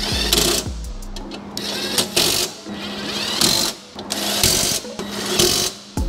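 Cordless impact wrench hammering bolts tight into a car's metal bumper reinforcement bar, in about five short bursts of rapid impacts. Background music plays underneath.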